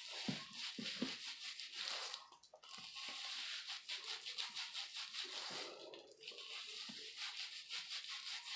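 Gloved fingers rubbing bleach into wet hair and scalp: a rapid, scratchy rubbing made of many quick strokes, with a couple of soft bumps in the first second.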